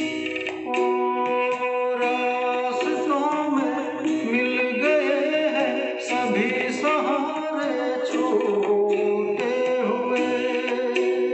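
Music: a Hindi film song's backing accompaniment with a wavering melodic lead line over it.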